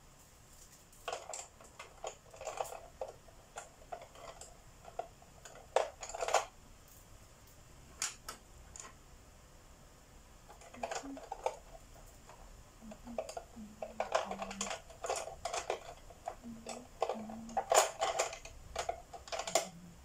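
Wooden coloured pencils clicking and clattering against each other as a hand sorts through a loose pile of them on a desk. The clicks come in irregular clusters, densest in the second half.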